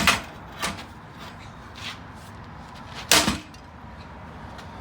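Heavy blows struck against a steel ATV frame to snap its welds: a loud hit at the start, a lighter one under a second in, a faint knock near two seconds, and another loud hit about three seconds in.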